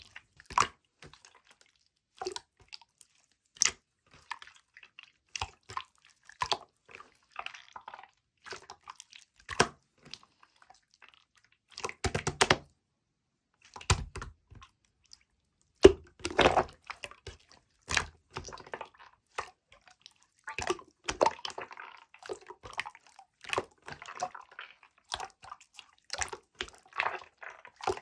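Irregular small clicks, taps and wet drips at close range, with short quiet gaps between them.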